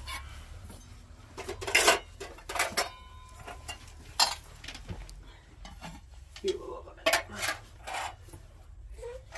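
Scattered clinks and knocks of hard objects being handled, a few ringing briefly.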